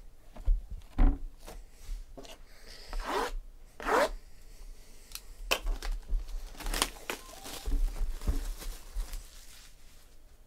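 Clear plastic shrink wrap being torn and peeled off a trading-card box, in short ripping and crinkling bursts, with a couple of dull thumps about a second in.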